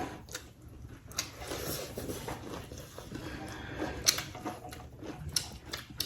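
Eating sounds from a mukbang of spicy chicken: chewing and biting, with scattered small clicks and taps, the sharpest about four seconds in.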